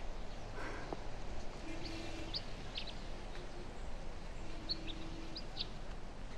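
Steady outdoor background ambience with a few short, high bird chirps scattered through it, some in quick pairs.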